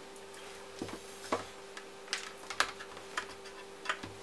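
Irregular light clicks and taps as multimeter probe tips touch a graphics card and the card is handled, about six in four seconds, over a steady electrical hum.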